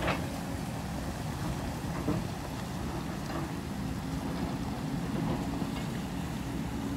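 Excavator's diesel engine running steadily in the distance, a low rumble with a faint held hum, with a couple of faint clanks, one at the start and one about two seconds in.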